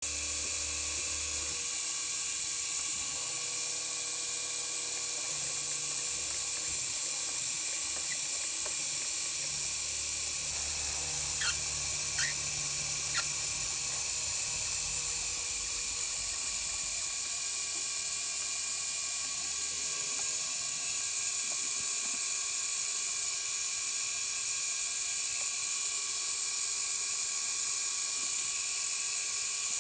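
CNC3018 desktop router's spindle running at a steady high whine while its bit mills hardened putty in a plastic model-kit part. A low stepper-motor hum comes and goes in stretches through the first twenty seconds or so as the axes are jogged. Three short clicks fall a little under halfway through.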